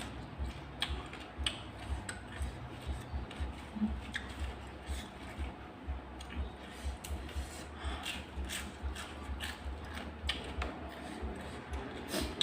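Someone eating close to the microphone: chewing, with irregular small clicks and taps and repeated low thuds.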